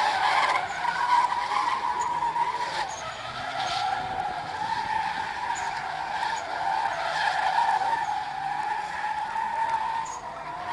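Toyota Altezza's rear tyres screeching continuously as the car drifts in tight circles under wheelspin, the squeal's pitch wavering as the car slides and grips.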